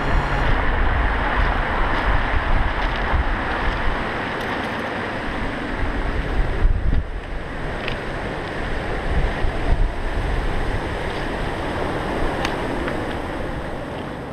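Sea surf breaking and washing up a shingle beach, with wind buffeting the microphone as a steady low rumble.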